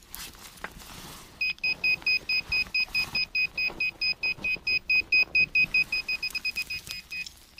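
Handheld metal-detecting pinpointer beeping rapidly, a high beep about five times a second, as it is worked through loose soil close to a buried piece of old tin; the beeps come a little faster near the end. Before the beeping starts, a little scraping of soil.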